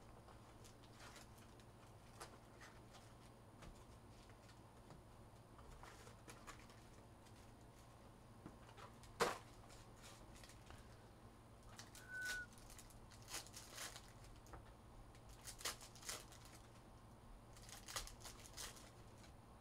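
Quiet handling of Donruss Optic basketball card packs: faint crinkling and rustling of foil wrappers in short bursts, with a sharp tap about nine seconds in and a brief high squeak about twelve seconds in.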